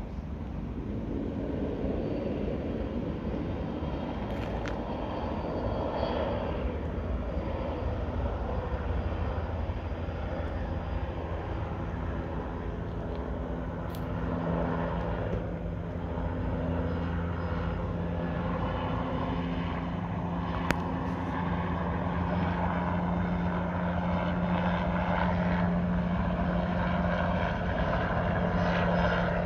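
Bell 206 helicopter in flight, its turbine and two-blade main rotor making a steady running sound. A low droning hum comes in about halfway through, and the sound grows slightly louder near the end.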